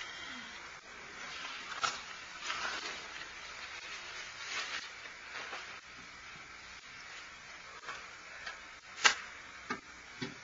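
Faint rustling and handling noises over a steady hiss, with a few short sharp clicks or knocks, the loudest about nine seconds in and two smaller ones near the end.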